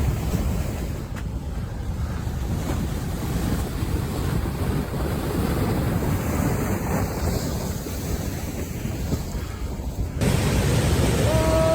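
Dense, rumbling rush of fast-moving floodwater mixed with wind buffeting the microphone. About ten seconds in the sound cuts to a brighter hiss, and near the end a short tone sounds and bends downward.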